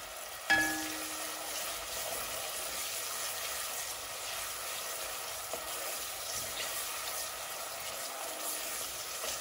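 Chopped red onions sizzling steadily in hot oil in an aluminium pot while a wooden spoon stirs them, sweating over low to medium heat until translucent. A sharp knock with a brief ring about half a second in.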